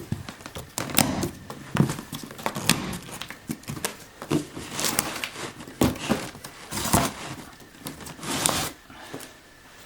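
A cardboard box being opened with a folding knife: irregular cuts, scrapes and crinkling of packaging, with occasional knocks of the cardboard.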